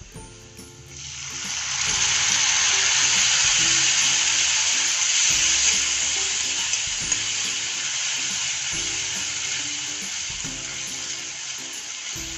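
Water poured into hot oil with fried onions, peanuts and spices in a kadhai: a loud sizzle starts about a second in and slowly eases while a metal spatula stirs the pan. Soft background music plays underneath.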